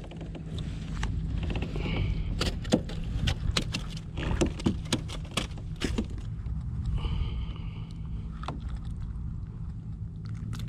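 Scattered clicks, knocks and rattles of a small flounder being handled and unhooked in a rubber-mesh landing net on a plastic kayak, over a steady low rumble.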